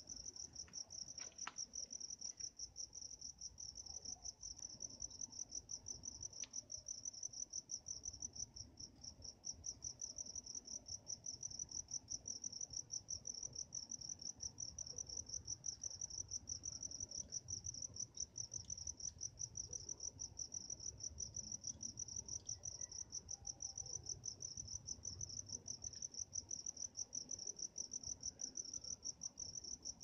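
Crickets chirping at night: a steady, high-pitched trill that pulses rapidly and evenly without a break.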